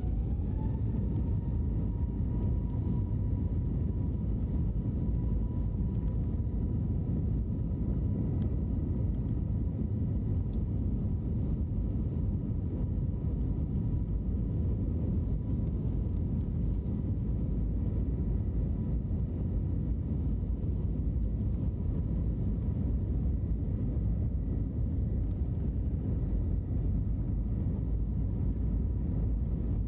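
Airbus A321neo cabin noise during the take-off roll: right at the start the engines' whine climbs in pitch as thrust comes up, then holds as a steady high tone over a loud, steady rumble.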